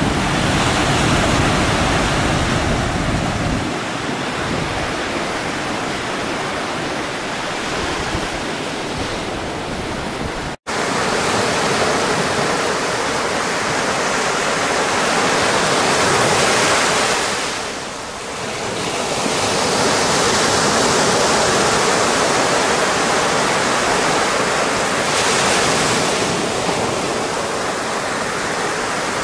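Small ocean waves breaking and washing up a sandy beach: a steady rush of surf that swells and eases as each wave runs up the sand. A sudden brief cut to silence about ten seconds in.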